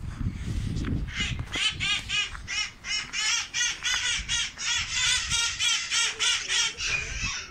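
Parrots squawking in a rapid, continuous series of harsh calls, about three a second. A low rumble sounds during the first second.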